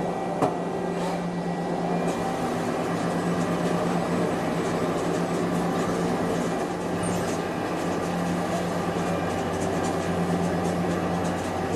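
CNC machine running with a steady hum and a constant whine over a haze of machining noise, with one short click about half a second in.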